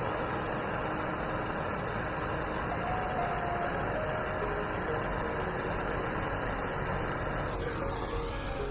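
A steady, even rushing noise with a faint melody underneath. It stops about eight and a half seconds in.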